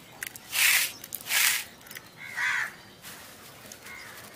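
A crow cawing three times, roughly a second apart.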